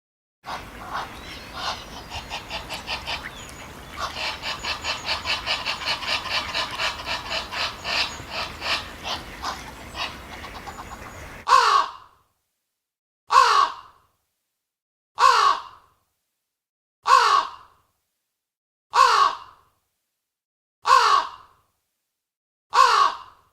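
An animal's calls: first a run of quick pulses, about four a second, over a steady hiss, then a single falling call repeated at even intervals of about two seconds, with dead silence between.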